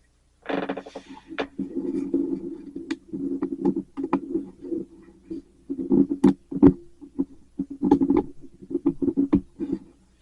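Close handling noise: irregular rubbing with many sharp clicks and taps.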